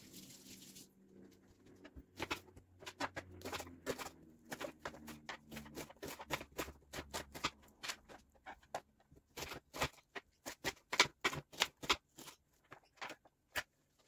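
Serrated kitchen knife chopping an onion on a plastic cutting board: a quick, uneven run of sharp taps, louder in the second half.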